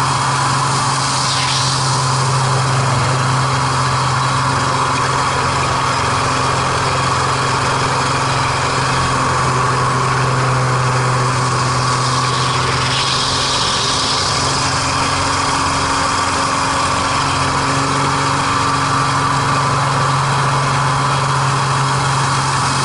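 MX2 aerobatic plane's piston engine and propeller running, heard on board as a loud, steady drone with rushing air. Its pitch shifts briefly about halfway through as the plane manoeuvres.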